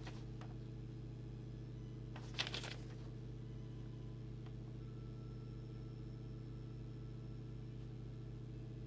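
Steady low electrical hum from the bench. About two and a half seconds in comes one brief rustle of the paper leaflet being handled.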